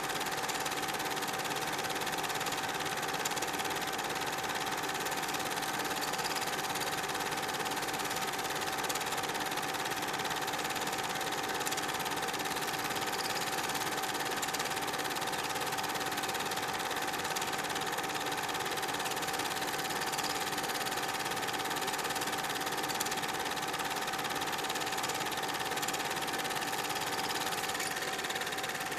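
Super 8 film projector running steadily, a constant mechanical whirr with a steady whine on top.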